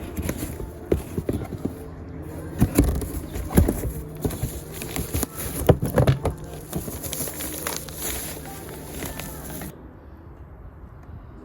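A cardboard parts box and its packaging being opened by hand: irregular rustling, scraping and knocks, loudest in the middle. About ten seconds in, the sound drops to a quieter, duller rustle.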